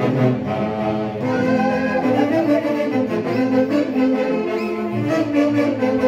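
Orchestral music with held notes on bowed strings and brass, at a steady level.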